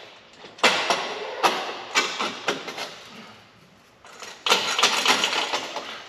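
Aftermarket axle-back exhaust muffler being shoved and twisted onto its pipe and into its hangers: metal scraping and clanking in two spells, the first starting about half a second in, the second in the last second and a half.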